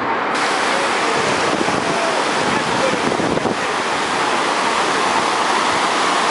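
Sea surf breaking and washing up a sandy beach in a steady, loud rush.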